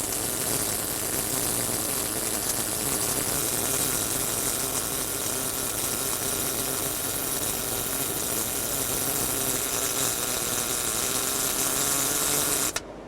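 STT (Surface Tension Transfer) short-circuit MIG arc from a Lincoln Power Wave S350, welding a downhill open root pass on carbon steel pipe. It runs steadily, then cuts off abruptly near the end as the arc is broken.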